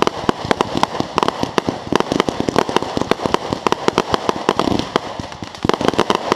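Consumer fireworks, several multi-shot cakes firing stars at once: a rapid, continuous run of sharp pops, many a second, over a steady hiss.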